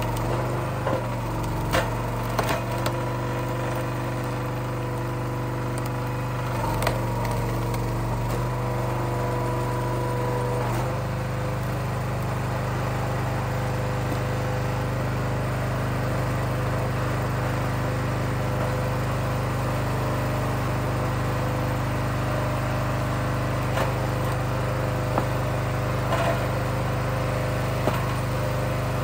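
Small gasoline engine of a hydraulic log splitter running steadily, its note shifting about eleven seconds in as the load on it changes. Sharp knocks and cracks of wood splitting and split pieces falling come in the first few seconds, with a few more later.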